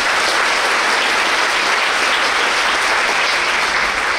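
Audience applauding: many hands clapping together in a steady, even patter.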